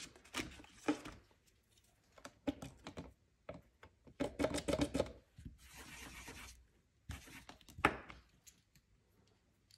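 Small handling noises from nail-stamping tools and a metal stamping plate in its plastic holder being moved about on a mat: scattered clicks, taps and thunks, with a brief scraping hiss about six seconds in.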